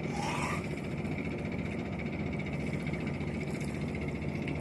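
Boat engine droning steadily at a constant speed: a low hum with a thin, unchanging whine above it. A short rising chirp sounds right at the start.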